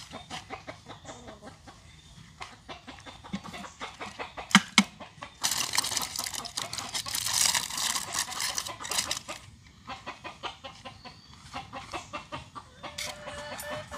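Chickens clucking close by, amid scattered clicks and knocks, with a louder, rougher stretch about halfway through.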